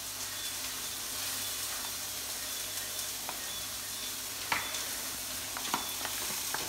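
Steady frying sizzle from beef burger patties in a hot greased pan, with a few light clicks about two-thirds of the way through.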